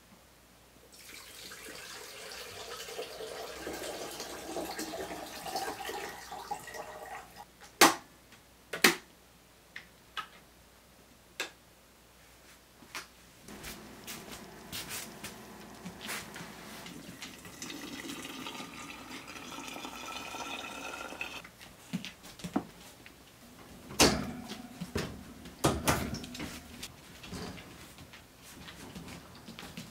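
Water pouring into a container in two spells, the second rising in pitch as the container fills. Several sharp clicks and knocks fall between and after the pours.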